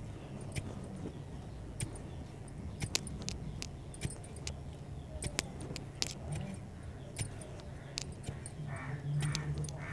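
Irregular sharp clicks and light clinks of hand work in soil while planting okra seedlings, over a steady low hum that grows louder near the end.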